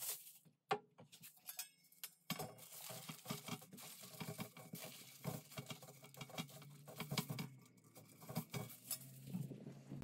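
Aluminium foil crinkling and crackling as it is folded and pressed around a metal grill heat-deflector plate: a few crackles at first, then a dense run of rustles and small sharp ticks from about two seconds in.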